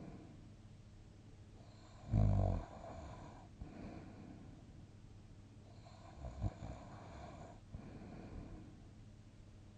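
A sleeping person snoring, two snores about four seconds apart, the first about two seconds in and the louder, with softer breathing between.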